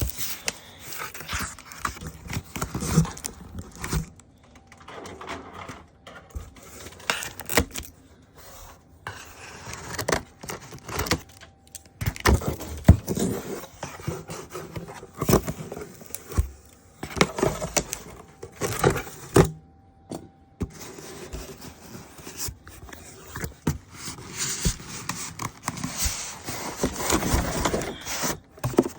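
Unpacking by hand: irregular rustling, scraping and knocking of cardboard and plastic packing material, with many sharp clicks and short scrapes.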